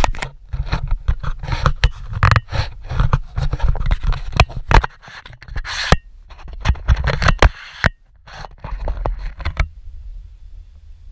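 Close scraping and knocking on or against the camera, a fast irregular run of scrapes and taps that stops suddenly about ten seconds in. After it comes a low steady rumble of wind on the microphone.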